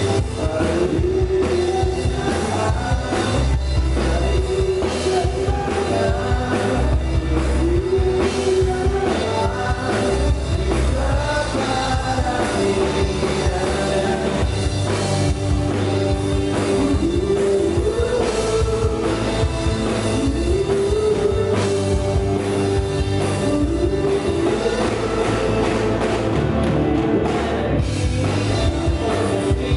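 A rock band playing live, with a melody line carried over bass and drums.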